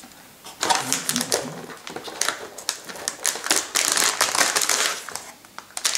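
Metallized anti-static bag crinkling and crackling as hands work it loose inside a cardboard box. It starts about half a second in and eases briefly near the end.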